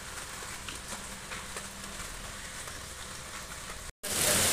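Heavy monsoon rain falling steadily, a dense hiss with scattered drops ticking. Just before the end it breaks off for an instant and comes back much louder: a downpour pelting onto waterlogged ground and standing water.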